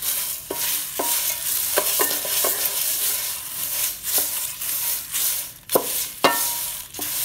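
Wooden spatula stirring a dry-roasted spice mix of lentils, seeds, chillies and dried leaves in an aluminium pot: a steady dry rustle and scrape, broken by repeated sharp knocks of the spatula against the pot, some of which ring briefly.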